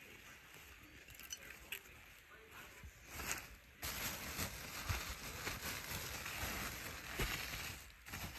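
Bubble wrap crinkling and rustling as it is handled and pulled open to unwrap a packed item; only a few faint crackles at first, then dense, busy crinkling from about three seconds in.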